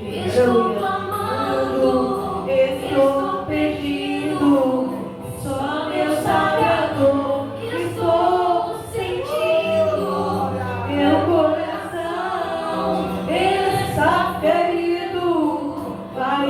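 Several voices singing a gospel worship song together, over a steady low accompaniment.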